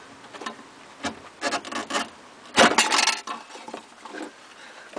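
Rubber fuel hose being worked loose from its fitting on a fuel pump assembly with pliers: a few short scraping, rubbing noises, the loudest just under three seconds in.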